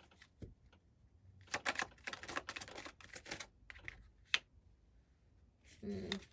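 Tarot cards being handled: a quick run of crisp papery clicks as cards are worked off the deck, then one sharp snap as a card is flicked out, about four seconds in.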